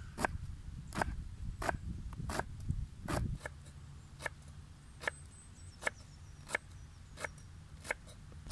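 Chef's knife chopping romaine lettuce on a wooden cutting board: a steady series of crisp knocks, about one and a half a second, as the blade cuts through the leaf and hits the board.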